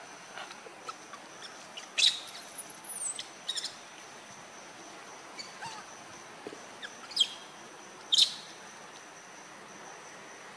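Wild birds calling: a few sharp chirps that sweep down in pitch, the loudest about two seconds in and again about eight seconds in, over a faint steady high-pitched insect drone.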